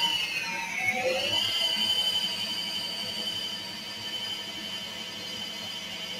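CNC lathe spindle drive whining as the VFD varies spindle speed under constant surface speed control. The whine drops in pitch over the first second, climbs back within about half a second, then holds steady.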